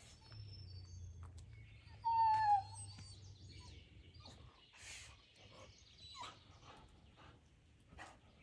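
A bird calling in a string of varied whistles and chirps, the loudest a short bending whistle about two seconds in, with thin high notes and quick clicky chirps around it.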